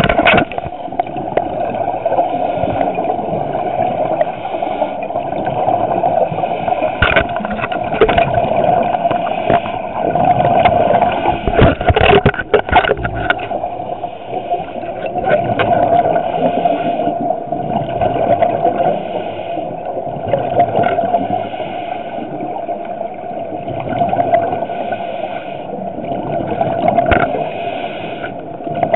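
Muffled underwater noise heard through a small dive camera's waterproof housing: a steady hum with scuba regulator breathing and bubbles gurgling in recurring puffs. Scattered knocks and scrapes, thickest about twelve seconds in, come from the loosely held camera housing.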